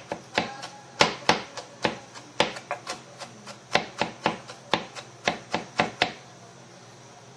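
Kitchen knife chopping vegetables on a plastic cutting board, quick sharp strokes at about four a second, stopping about six seconds in.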